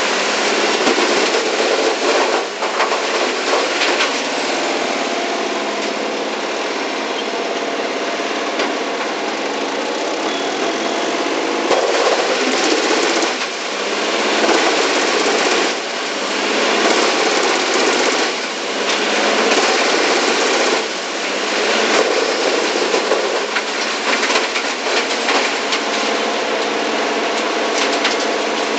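Bandit Model 2290 wood chipper running and chipping hardwood logs: a steady, loud engine-and-chipper din that swells in repeated loud stretches of a second or two as the wood is chipped, most often in the middle of the stretch.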